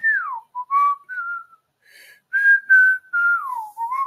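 A person whistling a tune: a run of clear single notes, some held level and two sliding down, one at the start and one about three seconds in.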